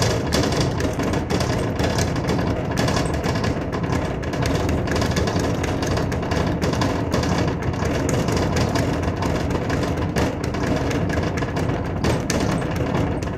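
Speed bag being punched at high speed, the bag rebounding off its overhead platform in a fast, unbroken rattle of blows.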